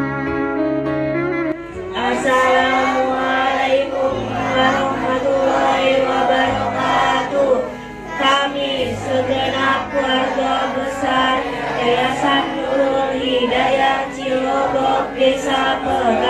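Background instrumental music; about two seconds in, a group of children's voices joins, singing together over it.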